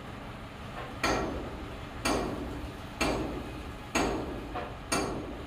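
Hammer striking metal five times at an even pace of about one blow a second, each blow ringing briefly.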